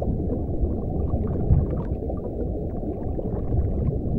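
Underwater ambience: a steady, muffled low rumble with faint scattered crackles.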